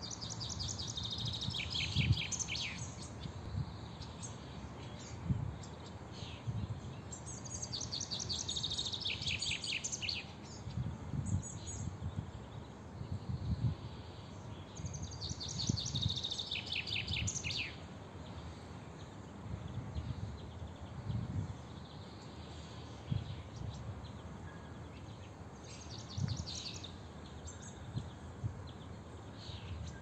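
A songbird singing repeated short phrases of quick high notes that fall in pitch, one phrase every seven or eight seconds, over a low, uneven rumble of background noise.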